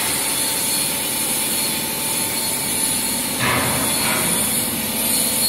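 Meltblown nonwoven fabric line running on a trial run: a steady hum and hiss of running machinery, with a brief louder rush of noise about three and a half seconds in.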